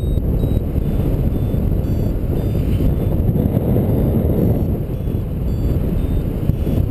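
Steady heavy wind rush on the microphone from the airflow of a paraglider in flight. A few faint, short, high beeps from a flight variometer come through now and then.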